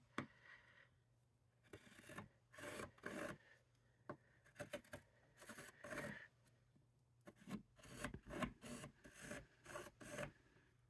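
Faint, intermittent scraping strokes of a craft tool drawn along the slots of a plastic template over cardstock, with short pauses between strokes.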